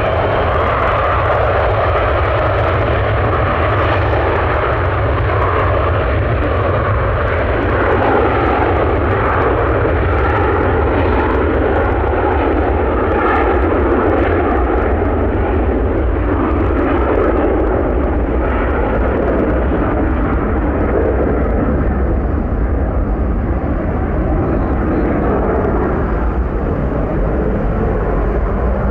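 The two Pratt & Whitney JT8D-7B low-bypass turbofans of a McDonnell Douglas DC-9-15 at takeoff power: a loud, steady jet roar through the takeoff roll and lift-off. The higher hiss dulls in the second half as the aircraft climbs away.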